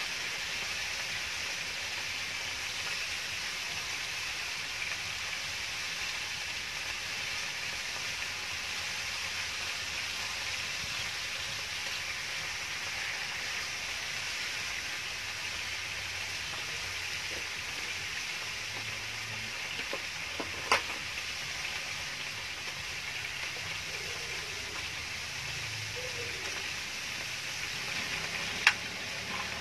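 Chicken pieces sizzling steadily on a round stone-coated grill pan over a portable gas stove. Two sharp clicks stand out, about two-thirds of the way through and again near the end.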